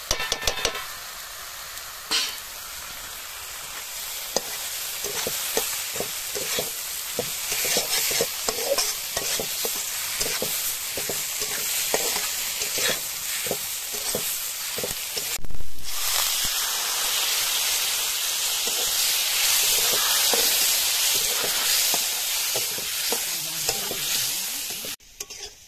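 Onion and ground-spice masala sizzling in a metal kadai, with a flat metal spatula scraping and stirring it round the pan over and over. A short dull thump about halfway through.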